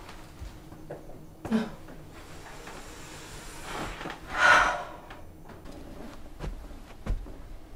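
A woman breathing out hard in a loud, breathy sigh about halfway through, with a shorter breath earlier and a few faint knocks near the end.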